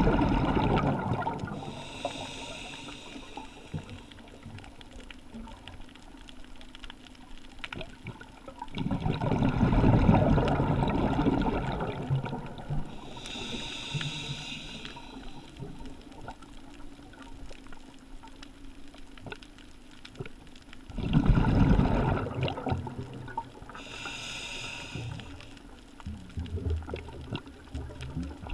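Scuba diver breathing through a regulator, heard through a GoPro's underwater housing. There are three rounds of a loud bubbling exhalation, each followed by a short hissing inhalation, about one breath every eleven seconds.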